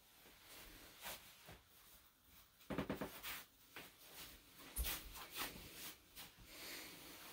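Faint shuffling of tabi-clad feet across tatami mats and rustling of a kimono as a person stands and walks. A brief louder sound comes near three seconds in and a sharp knock about five seconds in.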